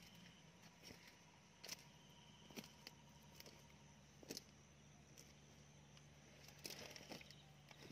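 Near silence: faint, scattered clicks and light knocks, about one a second with a short cluster near the end, over a low steady hum.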